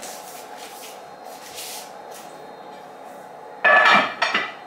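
A dish is put into a metal kitchen sink with a loud clatter lasting about a second, followed by a smaller knock, over a low steady kitchen hum.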